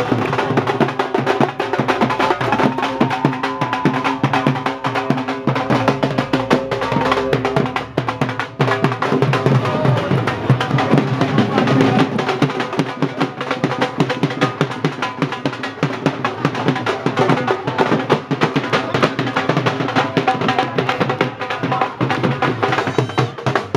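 Drums played in a fast, dense rhythm of many strokes, with some held pitched sound over it in the first half.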